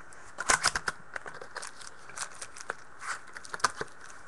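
Trading-card packaging being torn open and handled: a run of sharp crackles, tears and clicks, loudest about half a second in, with scattered crackles after.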